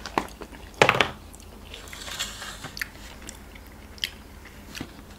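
Close-miked chewing of a mouthful of noodles, with small wet mouth clicks. About a second in, a clear plastic takeaway container is set down on the table with a short crackling clatter.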